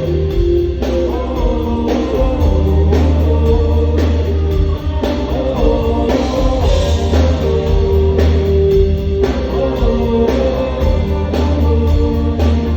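Live rock band playing an instrumental passage: sustained electric guitar notes over a steady bass line and a regular drum beat, with no vocals.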